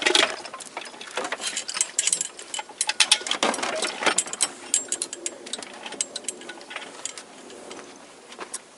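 Irregular metallic clicks, clinks and rattles of hand tools and steel bolts as engine-to-gearbox joint bolts are worked into place, busiest in the first half and thinning out toward the end.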